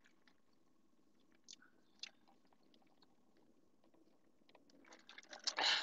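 Quiet chewing and wet mouth sounds from someone eating, with a few soft clicks early on and a louder cluster of crackly mouth noises near the end, over a faint steady hum.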